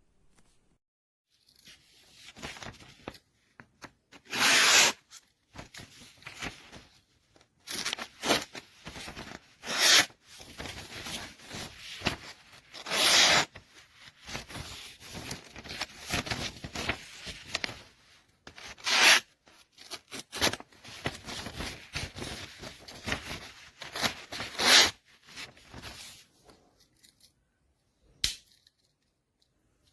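Handling noise: irregular rubbing and scraping close to the microphone, with several louder scrapes, about 1.5 s in until near the end.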